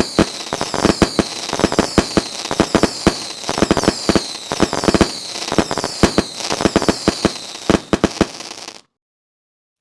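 Fireworks going off in rapid bangs and crackling, with a high falling whistle repeating about once every second. The sound cuts off suddenly near the end.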